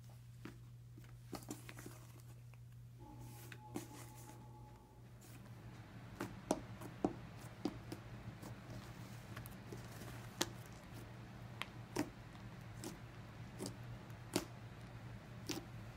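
Hands squishing and stretching matte slime, glue slime thickened with cornstarch, making scattered faint sticky clicks and pops over a low steady hum.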